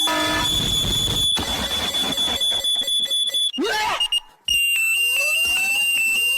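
Alarm sound: a steady high electronic tone that stops about three and a half seconds in, a brief silence, then a slightly lower steady tone with rising whistling glides beneath it.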